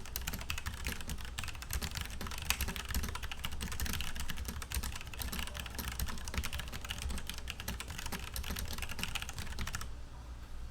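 Fast continuous typing on a Logitech G Pro mechanical keyboard with Romer-G tactile switches, a dense run of key clicks that stops near the end.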